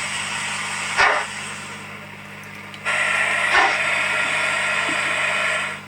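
Steam locomotive sound from a Zimo sound decoder in a Hornby Mallard model, played through its small speaker: a steady hiss with an occasional sharp chuff, over a low steady hum. The hiss drops out about two seconds in and comes back about a second later.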